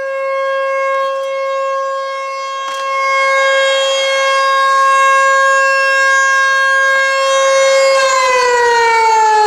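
American Signal T-128 outdoor warning siren sounding its single steady tone at full speed, really loud, growing louder about three seconds in. Near the end the pitch starts to fall as the siren begins winding down at the close of the short alert.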